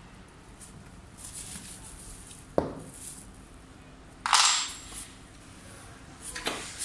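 Handling noises from an electric scooter being assembled: a sharp knock about two and a half seconds in, then a louder, longer clatter about four seconds in, with light rustling between.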